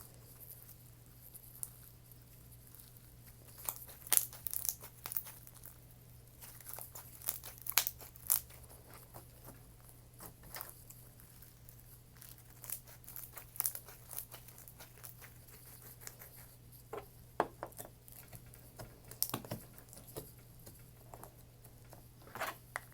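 Slime being handled and played with: stretched, pressed and torn, giving irregular sharp crackles, clicks and small pops.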